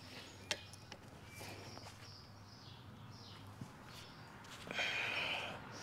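A few light metal clicks and taps from a hand tool working the retaining wire out of a hydraulic cylinder, with faint bird chirps in the background. A short rushing noise comes near the end.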